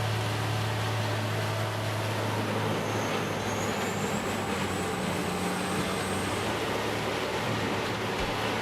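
Heavy diesel engine of an industrial wood grinder running steadily under load, with a dense grinding noise over the engine hum. A faint high whine rises about three seconds in and fades a few seconds later.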